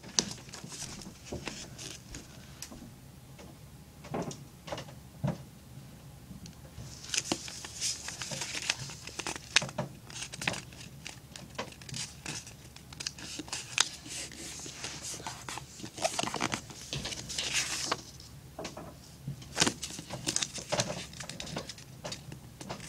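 A sheet of paper being handled, folded and creased by hand into a paper airplane: irregular rustling and crinkling with scattered taps and scratchy creasing strokes, busiest in two stretches.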